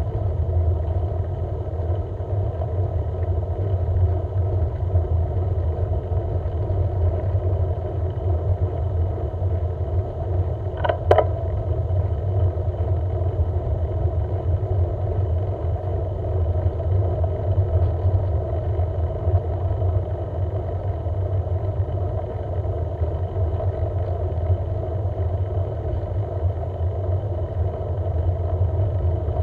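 Steady low rumble of travel along a road, with one sharp clack about eleven seconds in.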